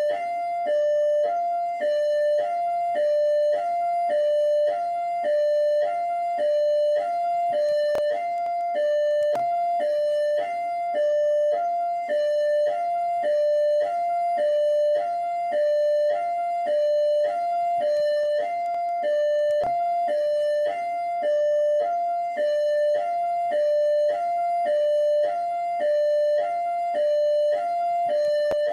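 PMERJ (Rio de Janeiro Military Police) electronic hi-lo siren sounding continuously: a high tone and a low tone alternate evenly, each held a little under half a second.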